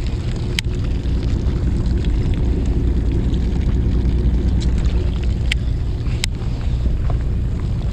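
Fishing boat's engine running steadily, a low even hum, with three short sharp clicks, one near the start and two a little over two-thirds of the way through.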